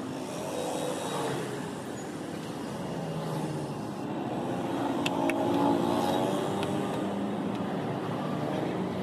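Road traffic passing close by, engine notes slowly rising and falling, with a few short sharp clicks a little after five seconds and near six and a half seconds.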